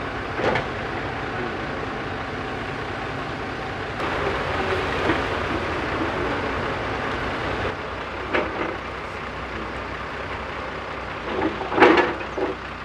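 Diesel engine of a JCB backhoe loader running steadily under work. Three short, louder sounds cut through it, the loudest near the end.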